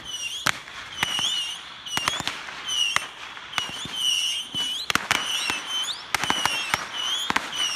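Roman candles firing in a fireworks war: an irregular series of sharp pops and bangs. Behind them runs a steady series of short high chirps, about two a second.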